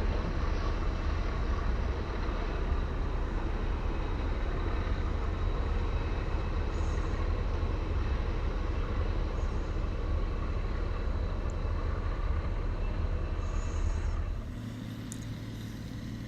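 Heavy diesel tractor engine running steadily with a deep rumble. About fourteen seconds in it drops to a quieter, steadier hum.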